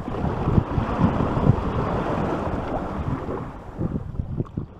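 Wind buffeting the microphone: uneven low rumbles and thumps under a rushing noise that swells in the first second or so and then fades away.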